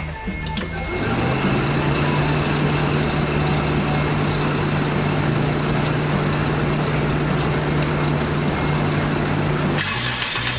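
Toyota AE86 Trueno's 4A-G twin-cam four-cylinder engine catches about a second in and runs at a steady, fast idle; its note changes near the end.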